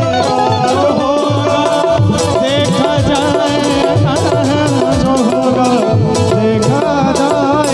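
Live Hindi bhajan music: a man singing over a Roland XPS-30 keyboard melody, with a dholak beating a steady rhythm.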